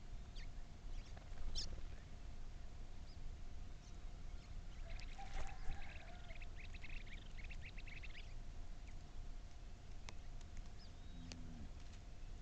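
An animal's call: a rapid run of high, pulsed notes starting about five seconds in and lasting about three seconds, with a few short chirps before and after, over a steady low rumble.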